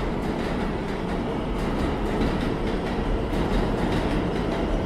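Subway train running along the track: a steady low rumble with faint irregular clicks from the wheels.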